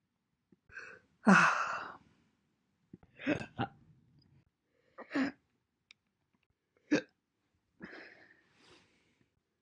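A woman hiccuping repeatedly, each hiccup a short, sudden voiced catch, coming every second or two. The one about a second in is the loudest and drawn out, and two come close together about three and a half seconds in.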